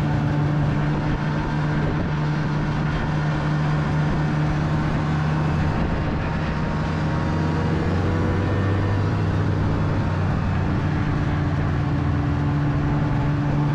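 Snowmobile engine running steadily while riding along a snow trail, heard up close from the rider's seat, with an even, unchanging hum.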